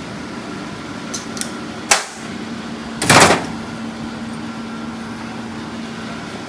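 Metal tools and small parts clinking on a workbench: a few light clicks, then a sharper one just before two seconds in and a short, louder clatter about three seconds in, over a steady background hum.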